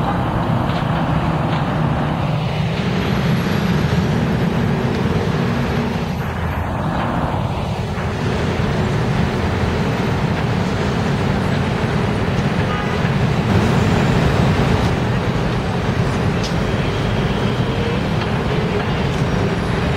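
City street traffic: city buses and cars passing, with engines running and tyres on the road as a steady rumble. Vehicles pass close by a couple of times.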